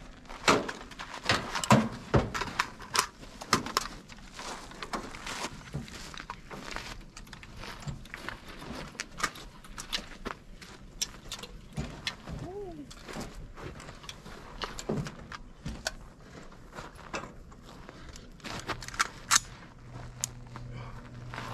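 Footsteps on a gravel road with scattered knocks and clatter of boots and gear on a metal truck bed; no gunfire.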